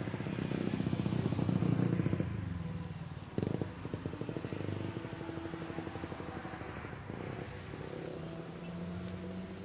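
Jet airliner on its takeoff roll, engines at takeoff thrust, heard from a distance under the low throb of a nearby engine. There is a sudden thump about three and a half seconds in.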